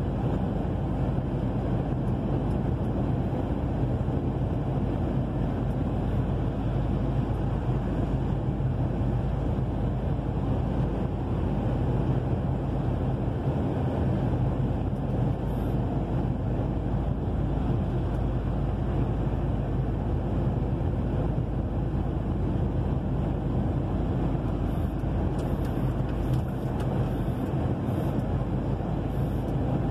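Truck running at cruising speed, heard from inside the cab on a wet highway: a steady low engine drone under the hiss of the tyres and road.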